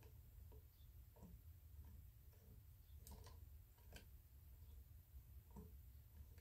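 Faint, irregular clicks and light knocks from a small model log splitter being worked, its belt-driven pulleys and eccentric moving the splitting blade in an oak frame, over a low steady room hum.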